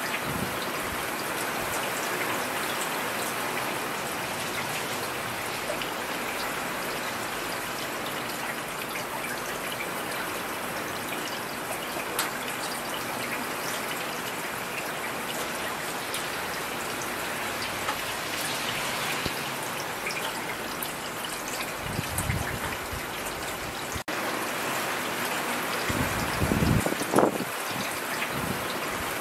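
Steady heavy rainfall pattering down, with two short low rumbles breaking through, about three-quarters of the way in and again near the end.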